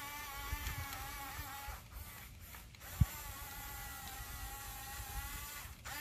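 Small electric drive motors of an RC toy bulldozer whining as it tracks forward pushing dirt. The whine stops for about a second near the middle and again briefly near the end. A single sharp thump about three seconds in is the loudest sound.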